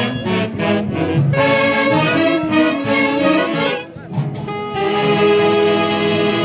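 A Huancayo-style orquesta típica playing live, with saxophones carrying the melody over a full band. About four seconds in the music briefly drops, then comes back on long held chords.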